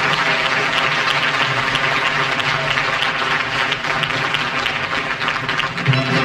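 Studio audience applauding steadily, with the band starting to play just before the end.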